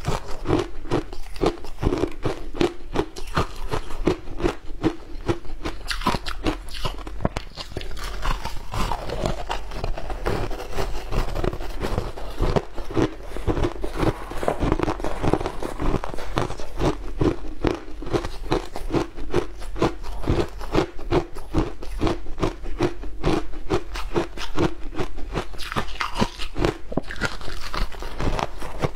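Ice being bitten and chewed close to a clip-on microphone: a dense, continuous run of crisp crunches and crackles over a steady chewing rhythm.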